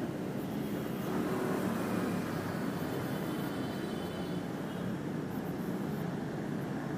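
Steady noise of city street traffic, with no break in it.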